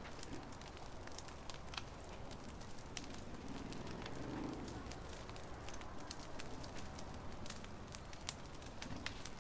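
Bonfire of brush and rotten deadwood burning, with irregular sharp crackles and pops over a steady low hiss.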